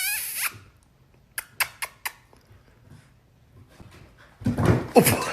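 A dog vocalizing: a few short clicks, then a louder rough, pitched outburst near the end.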